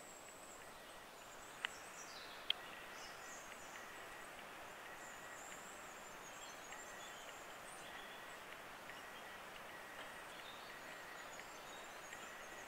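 Faint outdoor ambience: a quiet, even hiss with small birds chirping high, and two sharp clicks about one and a half and two and a half seconds in.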